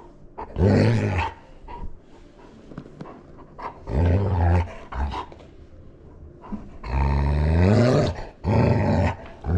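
Dog growling in play, in four loud, low growls, the third the longest, with quieter breathing between.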